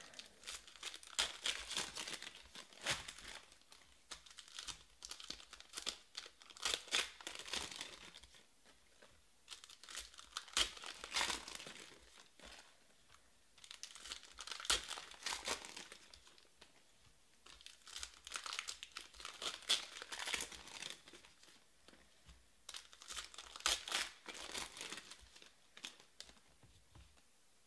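Foil wrappers of Panini Prizm baseball card packs being torn open and crinkled, one pack after another, in about six bursts some four to five seconds apart with quieter gaps between.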